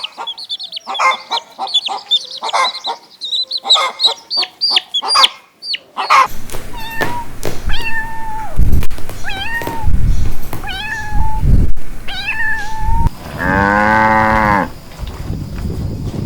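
Rapid high-pitched chirping for the first six seconds. Then a kitten meows about six times, roughly once a second. Near the end a cow gives one long moo.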